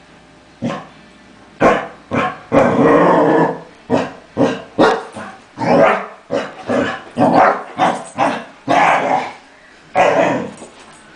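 Basset hound barking and baying in a long string of loud calls, some short and some drawn out to about a second. It is a complaint, the hound letting it be known that she is not pleased with the other dog.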